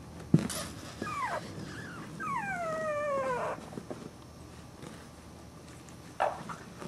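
Young puppy whimpering: two short cries falling in pitch about a second in, then a longer whine that slides down from high to low, and a brief yelp near the end. A sharp knock comes just after the start.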